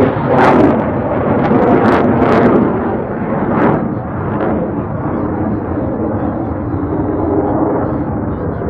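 Blue Angels F/A-18 Super Hornet's twin jet engines at full power as the jet climbs and rolls overhead: loud jet noise with several sharp crackles in the first four seconds, easing to a steadier, somewhat quieter rumble.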